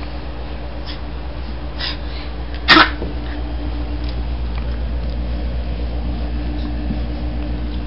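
Labrador puppies playing, with one short, sharp puppy sound about three seconds in and a few fainter ones before it, over a steady low hum.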